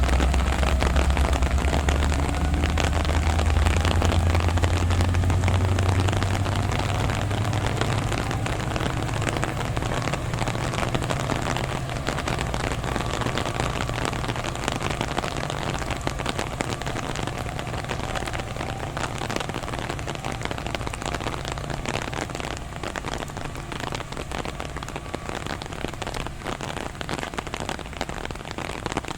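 Heavy thunderstorm rain falling steadily, with many sharp individual drop hits. A deep low rumble is strong at first and fades away within the first third.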